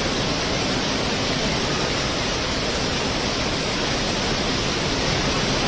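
Steady rush of strong cyclone wind and rough sea, with the wind rumbling on the microphone.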